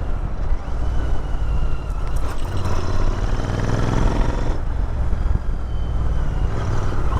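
Royal Enfield Interceptor 650's parallel-twin engine running on a dirt trail. It revs up through the middle and eases off about four and a half seconds in.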